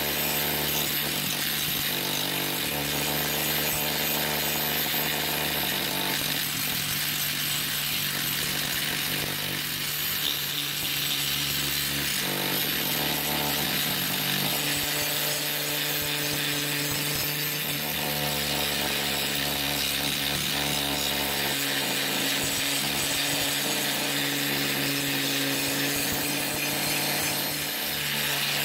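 Small angle grinder fitted with a wire wheel, running steadily against a rusty axe head and scouring off rust and pitting. A constant motor hum under a steady, rasping hiss.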